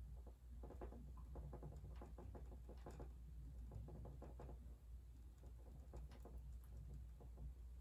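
Faint, rapid soft taps of a paintbrush dabbing paint onto a stretched canvas, coming in runs, over a steady low hum.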